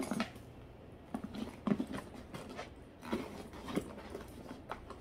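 Handling noise from a makeup pouch and other small items being moved and set down: irregular soft knocks and rustles, several a second apart.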